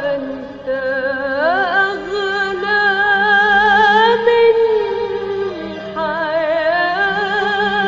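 Classical Arabic song music: a single melody of long held notes with wide vibrato and sliding pitch, over a steady low drone.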